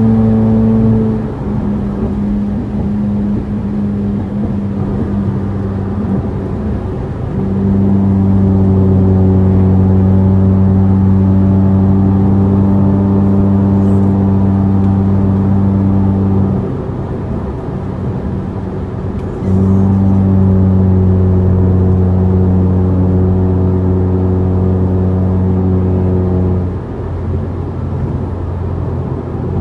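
A remapped Proton Inspira's four-cylinder engine is held at steady raised revs for several seconds at a time. It drops back twice, about 17 seconds in and again near the end, then is brought back up.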